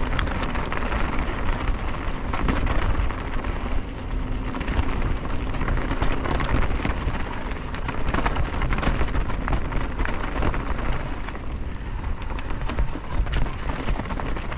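Mountain bike being ridden along a dirt trail: steady tyre and riding noise with many small clicks and rattles, over a low rumble.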